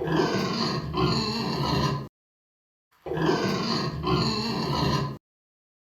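Pig grunting and squealing: the same two-second recording played twice, with a short silence between.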